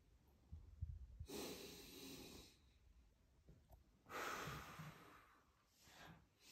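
A man's deep, audible breaths during chi gung exercise: a long breath about a second in, a stronger one around four seconds in, and a short one near the end, with faint low thumps before the first.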